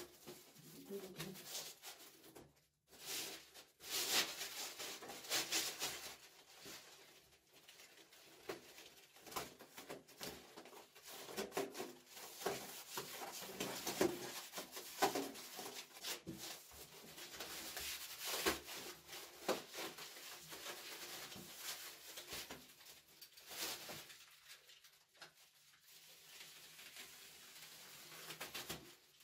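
Irregular rustling and crinkling of a self-adhesive polyethylene foam (isolon) sheet and its plastic backing film as the foam is pressed and smoothed by hand onto a PVC sewer pipe.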